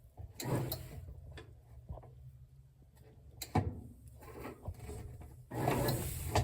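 Whirlpool WTW4815EW1 top-load washer agitating: a steady low motor hum with swishes of water and clothes, about half a second in and again near the end, and several sharp clicks and knocks.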